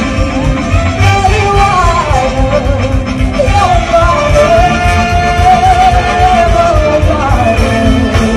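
Live amplified singing with a symphony orchestra: a solo voice carries a wavering melody over the strings and rhythm, holding one long note in the middle before moving on.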